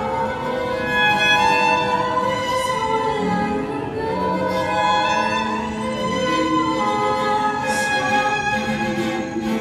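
Instrumental background music with long held, overlapping notes and a slow-moving melody.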